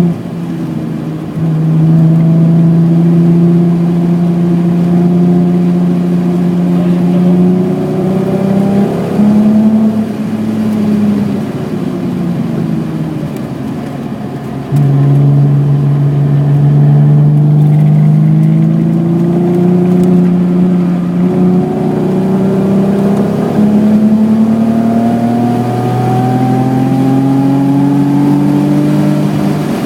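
1986 BMW E28's 3.6-litre engine pulling hard and rising in pitch through the gears, with a quick drop at each upshift, about a second in, around nine seconds and around twenty-one seconds. About ten seconds in the throttle comes off and the engine runs quieter for some five seconds, then it goes back on full throttle and climbs again.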